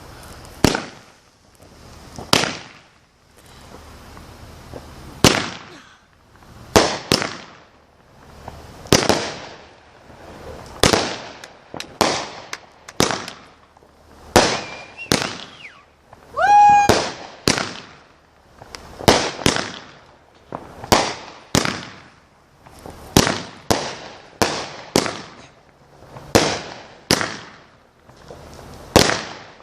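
Consumer firework cake (New York Salute Finale) firing its shots in sequence: a sharp bang every second or so, often two in quick succession, each with a short echo.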